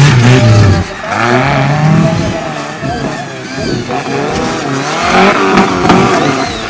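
Off-road race buggy's engine revving hard, its pitch climbing and falling as it accelerates and lets off; the note drops sharply about a second in, then climbs again.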